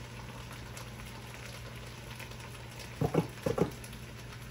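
Onions and peppers sizzling and bubbling in a hot pan as bottled Catalina dressing is poured in, with a few short glugs from the bottle about three seconds in.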